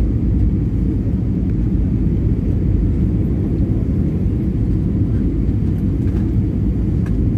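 Jet airliner cabin noise heard from a window seat: a steady low rumble of engines and airflow during the descent to landing.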